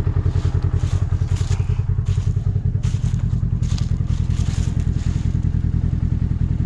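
Polaris RZR XP1000's parallel-twin engine idling with a steady, pulsing beat, with several short noisy bursts over the top through the middle.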